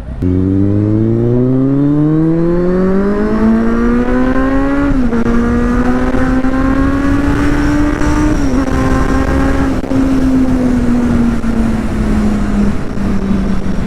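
Kawasaki Z800's 806 cc inline-four engine pulling hard under acceleration: the note climbs steadily, drops briefly for an upshift about five seconds in and again a few seconds later, then holds and eases off near the end.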